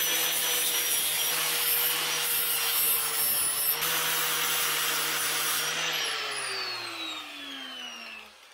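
Angle grinder grinding down weld beads on a metal tube bumper, running at a steady high whine. About six seconds in it is switched off and spins down, its whine falling in pitch as it fades.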